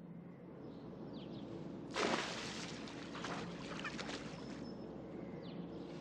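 A cat falling into a swimming pool: a sudden splash about two seconds in, then a couple of seconds of splashing as it scrambles out of the water. Faint bird chirps and a steady low hum sit underneath.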